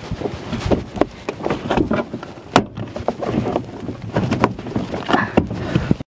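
Plastic interior trim cover of a Dodge Caravan sliding door being worked loose and pulled off by hand: an irregular run of clicks, snaps and knocks of plastic, the sharpest about halfway through.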